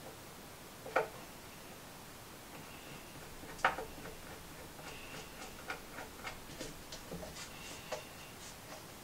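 Drawer knob being screwed by hand into a pre-drilled hole in a drawer front, giving light clicks and ticks as the screw turns and tightens: two sharper clicks, then a run of small irregular ticks.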